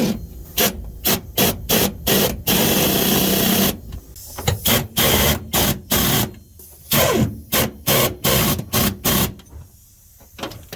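MIG welder laying a run of short tack welds, each a brief burst of crackling, with one longer continuous weld about two and a half seconds in; the welding dies away near the end.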